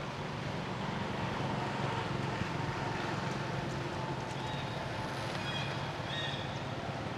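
A steady low engine hum, with a few short high chirps about five to six seconds in.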